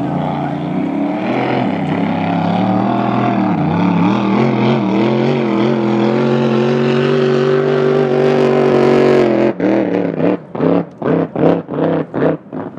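Supercharged engine of a blown flat-bottom drag boat running at speed, a loud steady note whose pitch wavers slightly. About nine and a half seconds in, the sound suddenly breaks into a rapid pulsing, about three beats a second.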